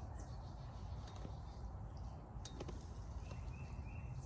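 Faint rustling and scraping of hands digging through loose potting soil in a fabric grow bag, with a few sharp clicks about two and a half seconds in. A short, high three-note chirp sounds faintly near the end.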